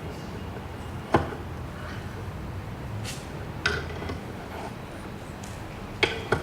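A few sharp metallic clicks and knocks from a spanner working on a steel bolt and nyloc nut, the loudest about a second in and two more close together near the end, over a steady low background noise.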